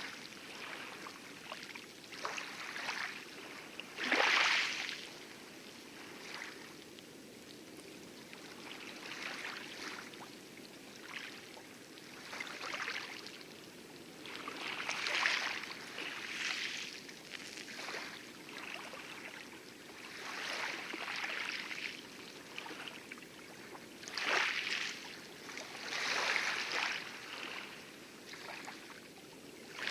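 Small waves lapping and splashing irregularly against coral, in soft wet splashes a second or two apart, over a steady low rush of distant heavy surf.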